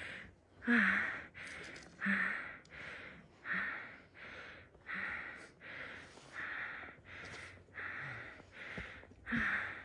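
A woman panting heavily, out of breath from running, in hard, even breaths about every 0.7 s with a slight voice on some of them.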